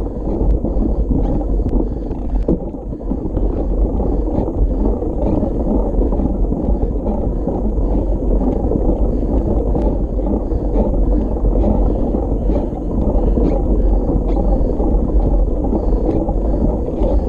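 Steady, muffled rumble of wind on the microphone and mountain-bike tyres rolling over a dirt road, with faint clicks and ticks from the bike.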